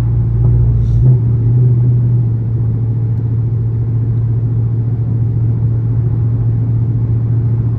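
Dodge Charger R/T's 5.7-litre HEMI V8 with its catalytic converters removed, cruising with a steady low exhaust drone heard from inside the cabin. About a second in, the deepest rumble drops away while the drone carries on.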